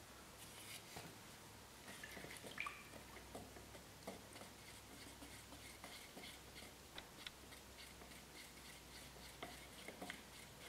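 Near silence, with faint scattered clicks and scrapes of a wooden stir stick in a metal paint can as primer and converter are mixed, over a low steady hum.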